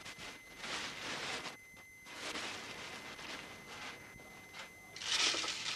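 Large plastic bag rustling and crinkling as it is handled, in irregular bursts, loudest near the end.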